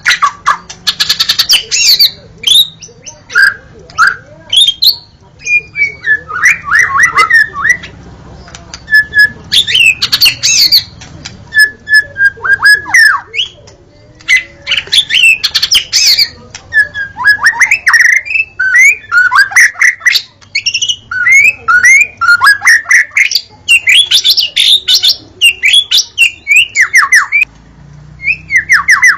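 White-rumped shama (murai batu) singing a fast, varied song of quick downward-slurred whistles mixed with harsh chattering notes, delivered in bursts with short pauses between them.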